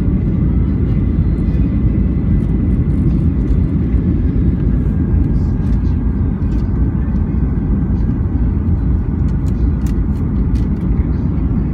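Airliner cabin noise: the steady low rumble of the engines and rushing air, heard from inside the passenger cabin, with a faint steady whine above it.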